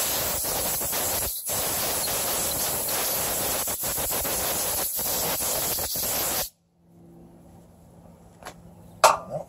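Compressed-air blow gun hissing as it blows off a spark plug, with a brief break about one and a half seconds in. The air cuts off suddenly about six and a half seconds in, and a couple of faint clicks follow near the end.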